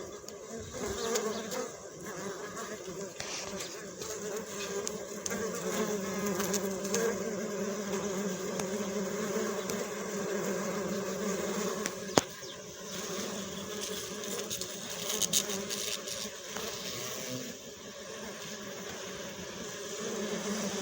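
Bees buzzing together, a steady hum that wavers slightly in pitch, with one sharp click about twelve seconds in.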